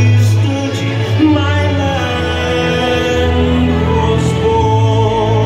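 Live band music with singing: sung vocals over held low bass notes.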